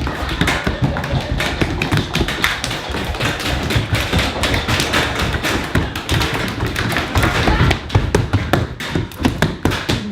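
Mechanical keyboards typed on rapidly by several people at once: a dense, continuous clatter of key clicks with low thuds underneath.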